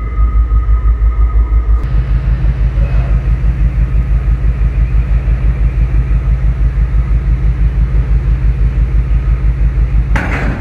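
The ship's diesel generator running in port, its exhaust from the funnel giving a steady low throbbing rumble at about six pulses a second. A faint high whine stops about two seconds in, and a brief rush of noise comes near the end.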